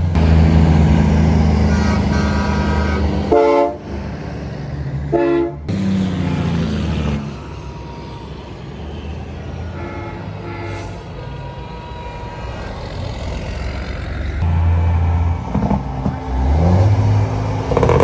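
Semi-trucks driving past one after another, their diesel engines rumbling, with short truck horn blasts a few seconds in, again a couple of seconds later, and once more around ten seconds. Near the end an engine note rises as a truck pulls by.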